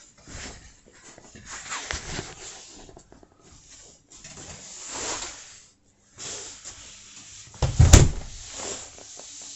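Rustling and shuffling handling noises in a small room, with one sharp, loud knock about eight seconds in.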